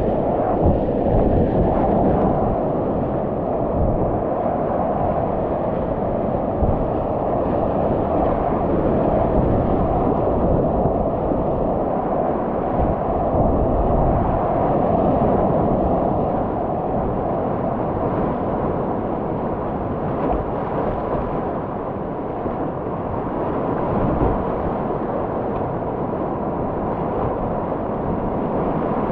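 Whitewater rapids rushing steadily around a kayak, heard up close on a muffled action-camera microphone as a deep, constant roar with little high hiss.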